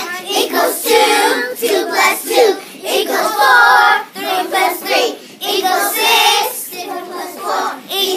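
A group of young children singing loudly together.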